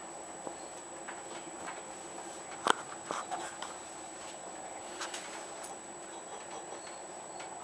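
Passenger train interior while running: a steady, subdued hum of the carriage with a faint high whine, broken by a few sharp clicks and knocks, the loudest about two and a half seconds in.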